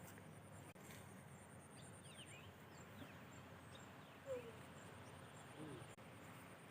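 Faint outdoor background with a few short bird chirps scattered through it, the clearest a brief falling call about four seconds in.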